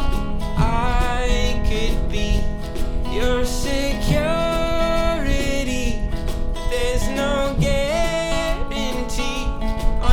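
Background music: a country-style song with acoustic guitar and a sung melody.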